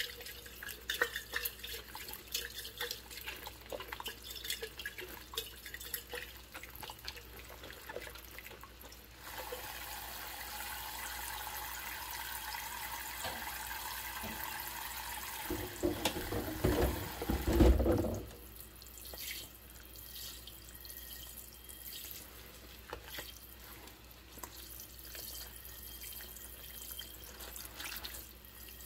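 Dishwashing in a sudsy stainless steel sink: water splashing and dripping as a glass is rinsed by hand. About nine seconds in, the tap is turned on and runs steadily. It grows louder and lower shortly before it is shut off, about eighteen seconds in. Splashing and dripping resume as a plate is washed.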